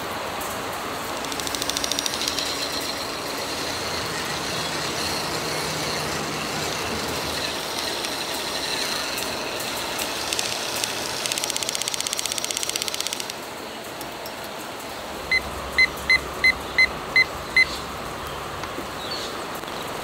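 Small battery-powered handheld mixer whirring in brownie batter in a glass mug, cutting off abruptly, against a steady outdoor background hum. Then a digital kitchen timer beeps six times in quick succession.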